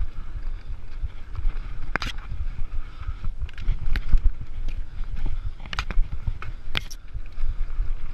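Mountain bike rolling fast over a dirt singletrack: a steady low rumble of knobbly tyres on dirt and air buffeting the camera, with four sharp clacks of the bike rattling as it hits bumps.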